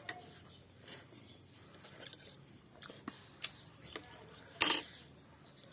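Eating sounds: scattered small clicks and chewing, with one louder short noise about four and a half seconds in.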